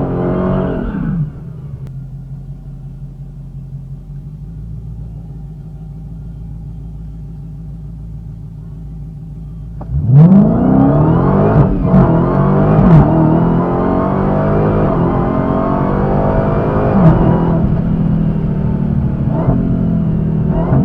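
Supercharged 6.2-litre Hemi V8 of a 2020 Dodge Challenger SRT Hellcat Redeye, heard from inside the cabin: a rev dies away, the engine idles steadily for about eight seconds, then the car launches at full throttle about ten seconds in. The engine note climbs and drops through several upshifts, with a brief stumble at the first shift, the 1-2 shift hiccup that the owner puts down to hitting or anticipating the rev limiter.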